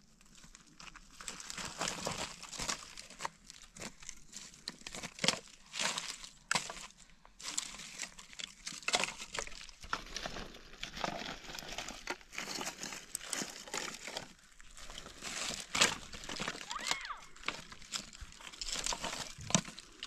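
Dry sticks and brushwood rustling, cracking and snapping as they are gathered by hand, with loose stones crunching underfoot; irregular sharp cracks among the rustling.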